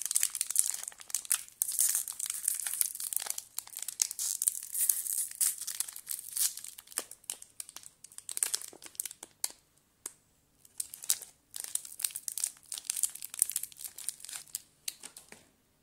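Shiny plastic wrapper of a Cadbury Moro chocolate bar crinkling as it is worked and peeled open by hand: a dense run of sharp crackles, with a short pause about ten seconds in, stopping just before the end.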